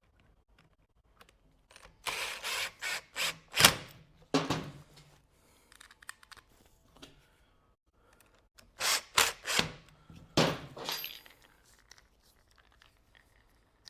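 Metal parts of an angle grinder being handled: sharp clicks and clattering knocks in two spells of about two seconds each, the second some six seconds after the first.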